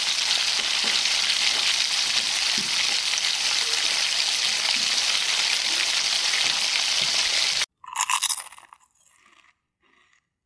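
Hot oil in an iron kadhai sizzling steadily as a batch is deep-fried. The sizzle cuts off abruptly about three-quarters of the way through, followed by a brief ringing sound and a few faint short blips.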